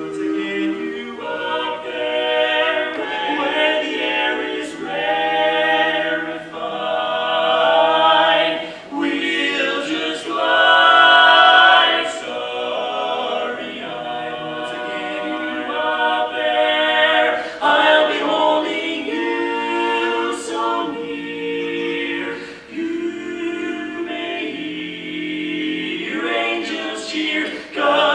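Male vocal quartet singing a cappella in close harmony: four voices with no instruments, moving between held chords.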